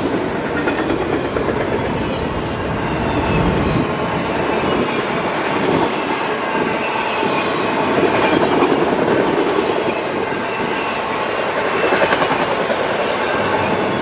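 Autorack freight cars rolling past close by: the steel wheels on the rails make a steady noise and clack over the rail joints, swelling every few seconds as the cars go by.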